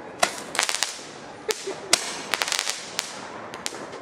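Fireworks and firecrackers going off: sharp cracks and pops, some single and some in quick rattling strings of several, at irregular intervals.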